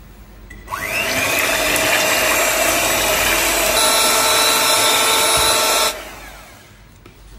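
Electric hand mixer whipping cream in a glass bowl: the motor starts about a second in with a rising whine, runs steadily for about five seconds, then cuts off suddenly.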